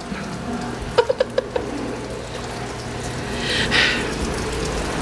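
Water running steadily, as from a tap into a container, with a few light knocks about a second in.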